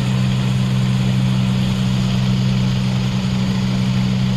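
Diesel engines of a farm tractor and a tracked rice combine harvester running steadily at low speed, an even low drone.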